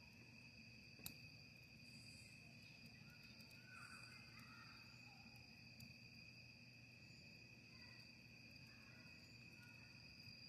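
Faint, steady high-pitched trill of crickets, with a single sharp click about a second in.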